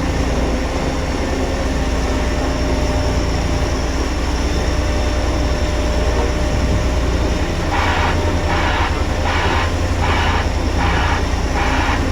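Heavy diesel construction machine running steadily with a deep hum. About eight seconds in, a pulsing rasp starts alongside it, about three pulses every two seconds.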